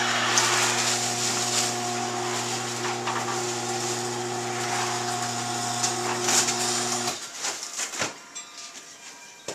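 Electric garage door opener running, a steady motor hum with a rattling whir, which cuts off abruptly about seven seconds in as the door reaches the end of its travel. A few knocks follow.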